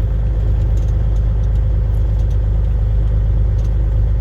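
Semi-truck diesel engine idling steadily, heard from inside the cab as an even low drone.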